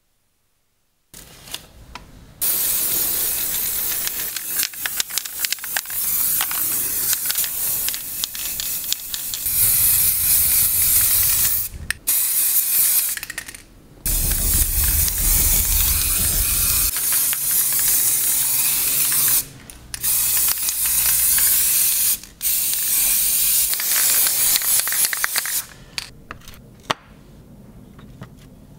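Spray paint hissing out of a sprayer in long, loud bursts with a few short breaks between them. It starts about two seconds in and stops a few seconds before the end.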